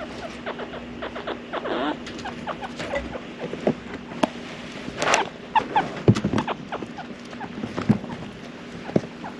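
Male chinchilla making his usual call: a run of short, sharp squeaks at irregular spacing, with a longer, louder burst about five seconds in, over a faint steady hum.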